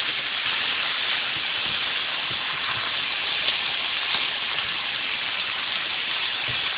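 Chicken breast fillets sizzling steadily in olive oil in a frying pan over high heat, a constant hiss with faint crackles as the meat browns.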